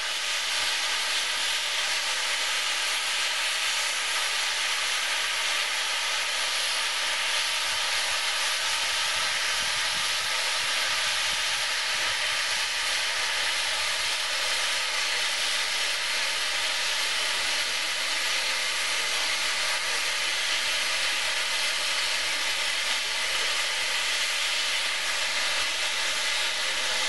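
Standing steam locomotive hissing steadily as it lets off steam.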